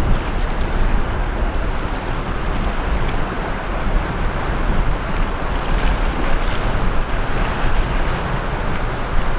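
Sea waves washing steadily onto the beach, with a deep rumble of wind buffeting the microphone.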